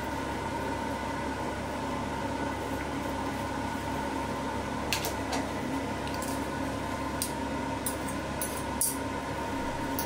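A steady appliance hum with a whine in it, and a few light clinks and scrapes of a metal spoon against a ceramic bowl as baked potato filling is mashed and stirred, clustered in the second half.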